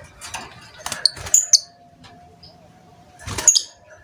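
Lovebird giving short, sharp, high chirps, twice in the first half and again near the end. Knocks and rustles surround the chirps.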